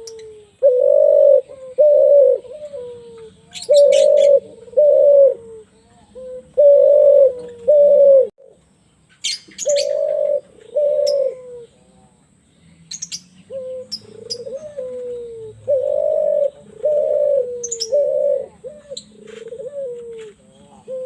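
Spotted dove (tekukur) cooing in a deep, rasping voice. It repeats phrases of a falling lead-in note followed by two or three louder coos, with short pauses between phrases. Brief high chirps from small birds cut in a few times.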